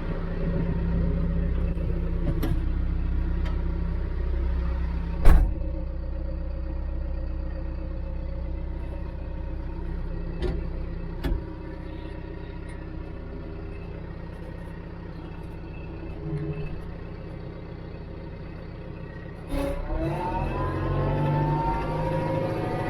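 An engine running steadily with a low hum, with a sharp knock about five seconds in; near the end its note changes and climbs.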